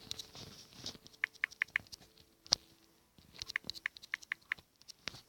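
Quiet scattered taps and short high clicks, coming in two quick runs of four or five, over a faint low hum.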